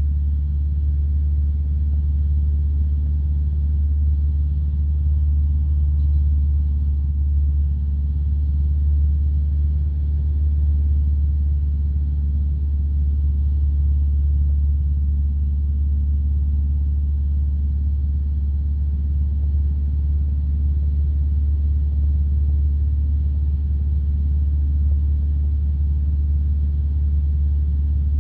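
Single-engine piston light aircraft's engine and propeller droning steadily in flight, a deep, even drone with no change in pitch.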